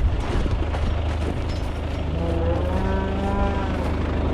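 A cow moos once, one long call that starts about two seconds in and lasts about a second and a half. It is one of a herd being sorted off their calves at weaning. A steady low hum runs underneath.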